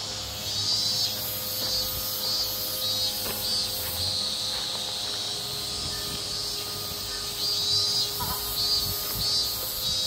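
Summer cicadas calling in a chorus, a high-pitched buzz that swells and fades every second or so, over a faint steady hum.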